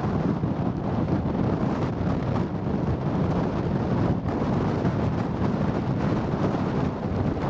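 Storm-force mountain wind buffeting the microphone: a loud, steady, low rumbling roar that rises and falls slightly.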